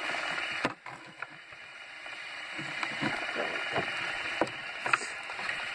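Spiky fidget spinner spinning on a tabletop, its bearing giving a steady whir, with a few scattered clicks from handling.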